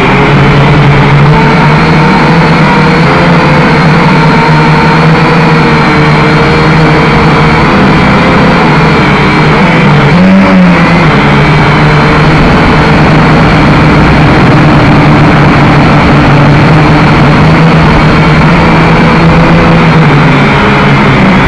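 A small drone's electric motors and propellers whining steadily in flight, heard up close from its onboard camera. There is a brief rise and fall in pitch about halfway through.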